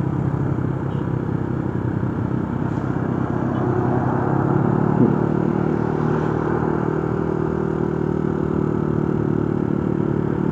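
Motorcycle engine running steadily while riding, growing slightly louder about four seconds in.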